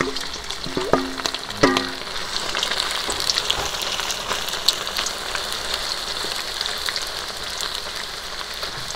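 Starch-and-egg-coated chicken thigh pieces frying in a wok of plenty of hot oil, a steady crackling sizzle as a wooden spatula stirs them, with two short ringing clinks about one and two seconds in. The chicken is being blanched in hot oil so that it turns crisp.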